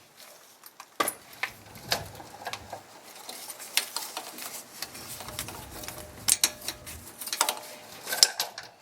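Metal hand tools and parts clinking and knocking at irregular moments: sockets, extension and hub bolts being handled during rear hub assembly removal.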